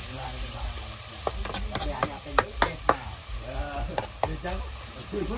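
Cooking sounds: a utensil knocking sharply against cookware about ten times, the loudest knocks a little over two seconds in, over a steady hiss.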